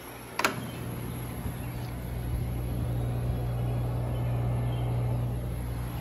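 Friedrich window air conditioner running: a steady low hum with the whoosh of its fan, which swells from about a second and a half in and then holds. A single sharp click about half a second in.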